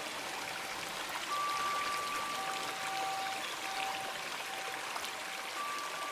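Steadily running stream water, with long, held bell tones ringing over it; a higher tone enters a little over a second in and a lower one joins about a second later.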